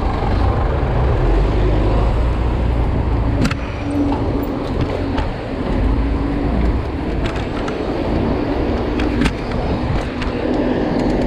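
Busy city street traffic heard close up from a bicycle: car and truck engines running around the rider, under a steady low rumble. A few sharp clicks or knocks stand out, the bike itself rattling.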